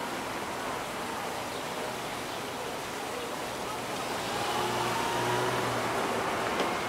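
A car driving slowly past: its engine hum and tyre noise swell and fade about four to six seconds in, over a steady background hiss.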